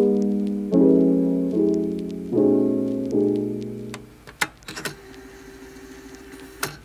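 Lofi background music of soft piano chords, each chord struck and fading, a new one about every second; the music stops about four seconds in, leaving a faint held tone and a few light clicks.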